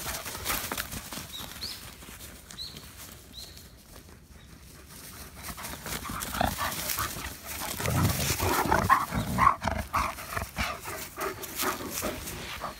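Dogs at rough play, a wolfdog chasing another dog through frosty grass. Their vocalizing and scuffling swell from about six seconds in as they close on the camera.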